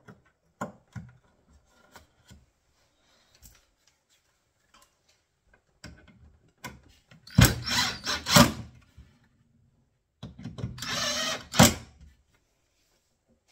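Makita 18V cordless drill driving screws into a metal hinge mounting plate in a kitchen wall cabinet's side panel, in two short bursts a couple of seconds apart. Before them come small clicks from the hinge plate being handled.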